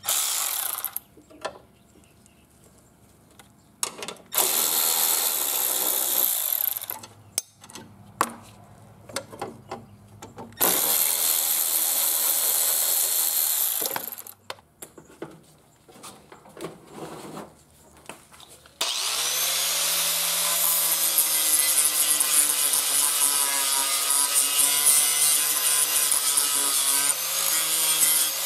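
Cordless electric ratchet running in short bursts as it backs bolts out of a steel mower-deck bracket, with small clinks of parts between. About 19 s in, an angle grinder spins up and runs steadily, and near the end its disc starts grinding on the steel bracket.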